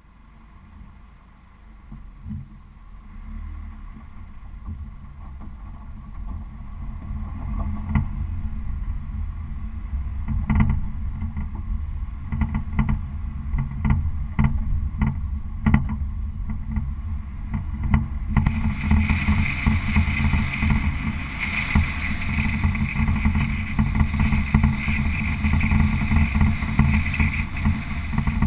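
Car driving, heard through a GoPro Hero camera mounted on the outside of the car: a steady low road and engine rumble that grows louder over the first several seconds, with knocks as the car jolts along a dirt road. About two-thirds in, a louder, brighter rush of noise joins and stays.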